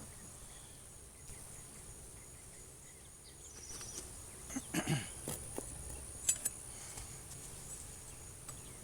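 Steady high-pitched drone of insects such as crickets, with a brief stir of handling noise about halfway and a couple of sharp clicks a second or so later.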